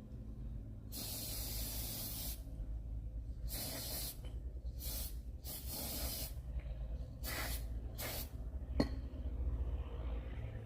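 Aerosol carburetor cleaner sprayed onto a small lawnmower carburetor in about six hissing bursts, the first about a second and a half long and the rest shorter, as the carburetor is being cleaned. A single sharp knock near the end.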